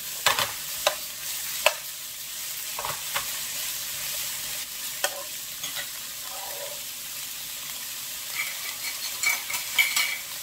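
Butterbur stems sizzling in oil in a frying pan while a metal slotted spoon stirs them, scraping and tapping against the pan several times. A few light metallic clinks near the end.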